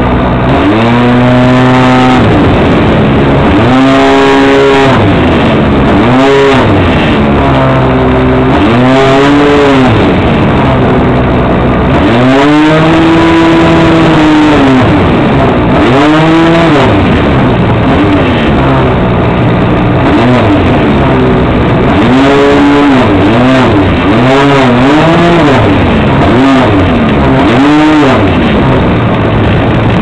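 The motor and propeller of a radio-controlled Ben Buckle Great News model aeroplane, heard close up from a wing-mounted camera. Its pitch swings up and down over and over, every second or two, with a rush of air noise underneath.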